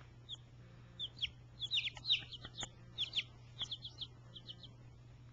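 Young chicks, five to eight days old, peeping: a quick string of short, high, falling peeps that stops shortly before the end.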